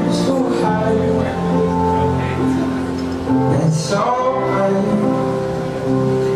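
A song plays: a singing voice holds long notes over instrumental backing.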